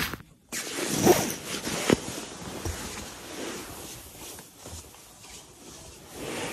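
Nylon sleeping-bag and tent fabric rustling and rasping as someone moves about inside a small tent, with sharper scrapes about one and two seconds in, then quieter rustling.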